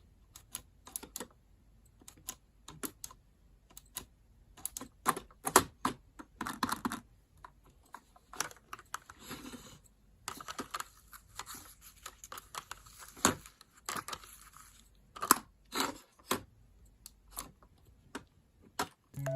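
Irregular close-up clicks and taps, with a few longer crinkling, crackling stretches around the middle: objects being handled by hand.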